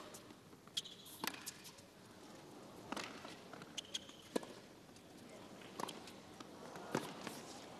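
Tennis rally on a hard court: rackets striking the ball back and forth, with ball bounces, making a series of sharp pops roughly a second to a second and a half apart.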